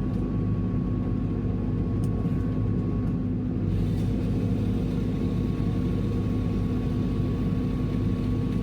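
Merlo crane's diesel engine running at a steady speed: an even hum with a faint, thin high whine above it.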